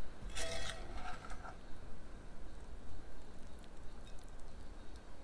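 A metal slotted spoon scraping against cookware while Brussels sprouts are scooped out. There is one scrape with a ringing tone about half a second in, lasting about a second.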